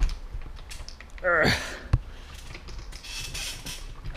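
A bicycle repair stand being handled and unfolded: scattered clicks and knocks of its tubes and clamps, a short sound falling in pitch about a second in, and a sharp click near two seconds.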